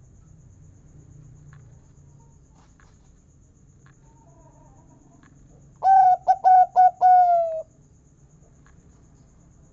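Zebra dove (perkutut) giving one cooing song phrase about six seconds in: a quick run of short notes ending in a longer, slightly falling note.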